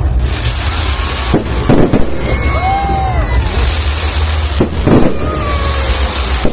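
Aerial fireworks going off: sharp bangs about a second and a half in and again near four and a half and five seconds, with spells of hissing crackle between them.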